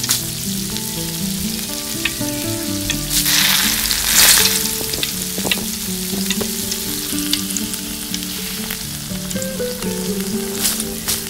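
Onions frying and sizzling in hot oil in a tiny steel karahi, stirred with a small spoon. About three seconds in, the sizzle swells loudly for a couple of seconds as sliced tomatoes go into the oil, then settles back with a few light clicks of the spoon.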